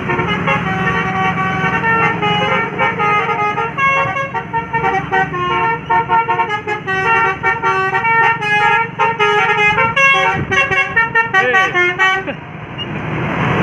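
A bus's Basuri telolet horn playing a quick melody of short, stepped notes, loud throughout and cutting off about twelve seconds in; a rising rush of noise follows.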